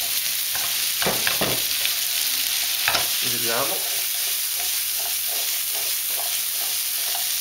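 Cubed potatoes and asparagus sizzling in hot olive oil in a non-stick frying pan, stirred and then tossed over the gas flame. A few knocks of the pieces and the pan come about a second in and again near three seconds.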